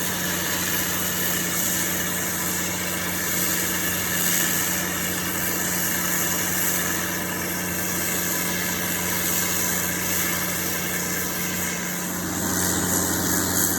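Pumping station with a 40-inch axial-flow pump running: a loud, steady machine hum with a constant high hiss over it.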